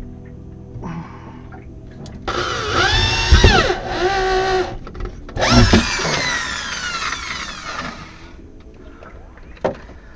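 Power drill running in two bursts, its whine rising and falling in pitch as the trigger is worked. The second burst winds down slowly at the end.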